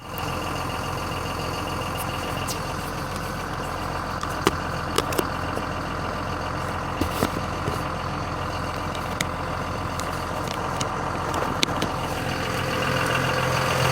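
A vehicle engine idling steadily, with a few sharp clicks scattered through it.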